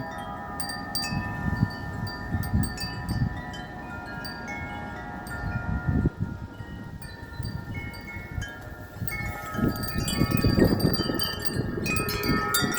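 Several metal wind chimes ringing continuously in strong, gusty wind, many tones overlapping. Wind rumbles on the microphone underneath and swells with a strong gust about ten seconds in.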